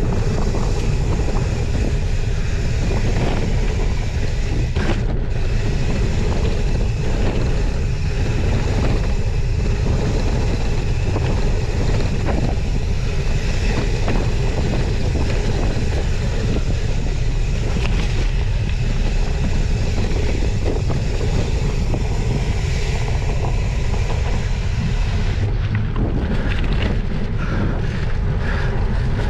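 Gravel bike descending a gravel trail: steady wind noise buffeting the microphone, over the constant crunch and rattle of 40 mm Maxxis tyres rolling on loose gravel.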